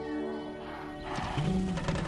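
Soft orchestral background music with held notes. About a second in, a harsh animal call with a pitch that rises and then falls cuts across it, with a few sharp strokes after it.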